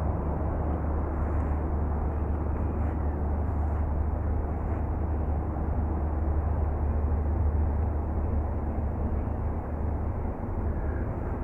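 A steady low rumble with a hiss above it, unbroken throughout.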